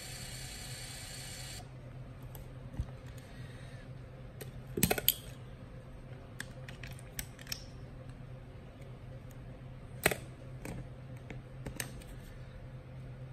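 Hasselblad XPAN II's built-in motor whirring as it rewinds the film, stopping about a second and a half in. Then a few sharp clicks and knocks as the camera back is unlatched and opened and the film cartridge is lifted out, the loudest cluster about five seconds in.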